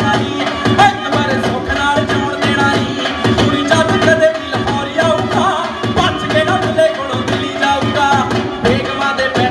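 Punjabi bhangra music playing for the dance: a fast, driving drum beat under a voice singing.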